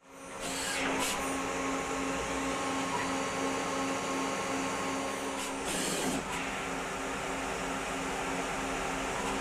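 Citizen A20VII CNC Swiss-type lathe running while it machines a 303 stainless steel part: a steady mechanical whirr with a regular pulsing hum. Brief hisses come about a second in and again around six seconds in. The sound fades in at the very start.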